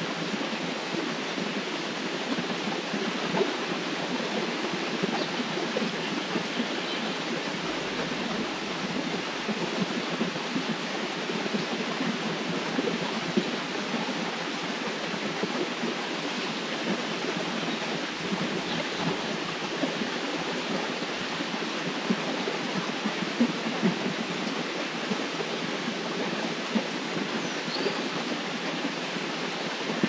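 Water of a river flowing steadily: an even rushing with small irregular splashes.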